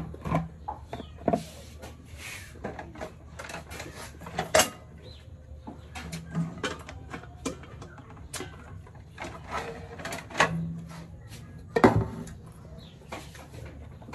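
Irregular knocks, clicks and scrapes of things being handled and set down on a tabletop, including a plastic bowl, with several louder knocks scattered through.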